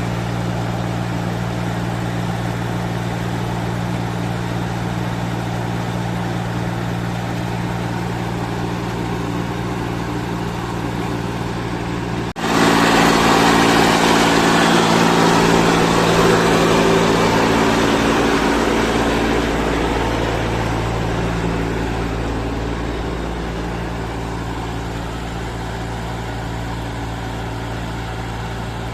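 Heavy-machinery diesel engine running steadily. About twelve seconds in there is an abrupt break, after which it runs louder with more hiss, then gradually eases back down.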